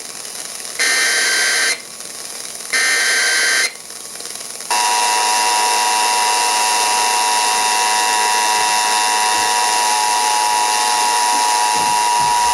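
Emergency Alert System SAME header: two harsh digital data bursts, about a second each and a second apart. Then, about four and a half seconds in, the EAS two-tone attention signal (853 and 960 Hz together) starts and holds steady, marking the start of an alert, here a required monthly test.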